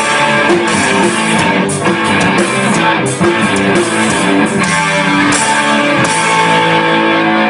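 Rock band music: electric guitar playing over drums, settling into a held chord about six seconds in.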